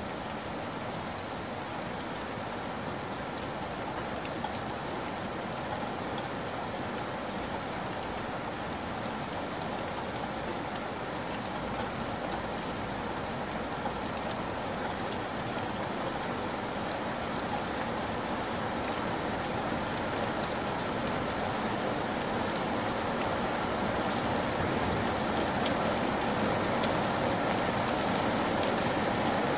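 Steady rainfall: a continuous hiss of rain with many small drop ticks, growing gradually louder.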